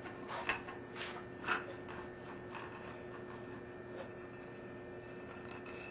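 A few light knocks and scrapes of things being handled in the first second and a half, then a faint steady hum with one held tone.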